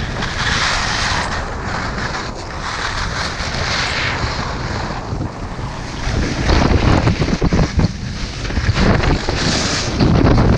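Wind rushing over an action camera's microphone while it moves fast down a ski slope, mixed with the hiss and scrape of edges on packed snow. It turns rougher and choppier from about six seconds in.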